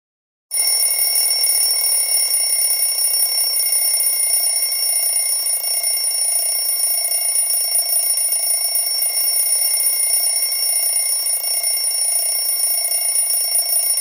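Alarm clock ringing steadily without a break, starting about half a second in.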